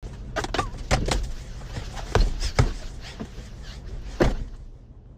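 Knocks and thumps inside a car's cabin as someone gets into the back seat and puts a baseball glove down, over a low steady rumble. The loudest thumps come about two seconds in and just after four seconds.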